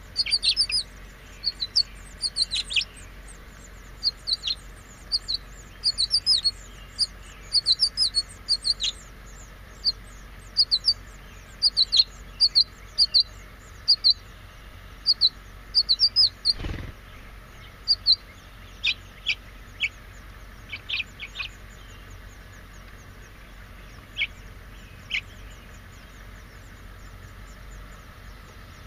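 House finch nestlings begging at feeding time: rapid runs of short, high peeps that thin out into a few scattered notes and stop a few seconds before the end. There is a single dull thump a little past halfway.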